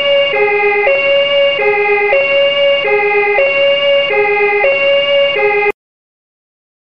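Toy car's electronic siren playing a two-tone hi-lo wail, alternating between a higher and a lower note about every half second, then cutting off suddenly near the end.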